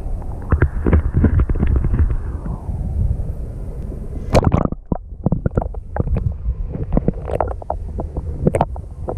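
Muffled underwater sound picked up through a waterproof camera housing: a steady low rumble of moving water, with irregular clicks and pops and a louder splashing burst about four and a half seconds in.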